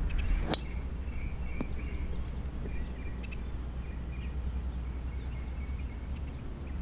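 A golf club striking the ball on a tee shot: one sharp click about half a second in. After it, birds chirp, with a short rapid trill, over a low steady rumble.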